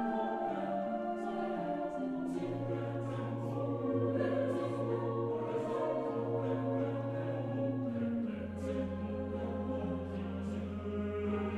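Background choral music: voices hold slow, sustained chords over a deep bass note that comes in about two and a half seconds in and steps lower about eight seconds in.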